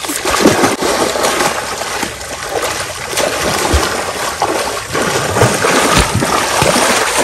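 Heavy splashing and churning of water as people grapple, thrash and surge through a waist-deep stream, with many irregular loud splashes throughout.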